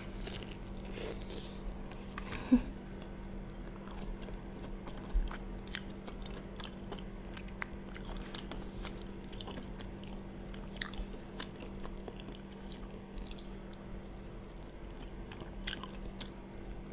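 Close-miked chewing and biting of battered fried fish, with scattered wet mouth clicks and smacks; the batter has gone soft rather than crisp. A steady low hum runs underneath.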